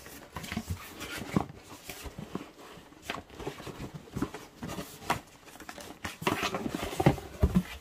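A cardboard box of a UV/LED nail lamp being handled and moved: scattered knocks, taps and rustles, busier near the end.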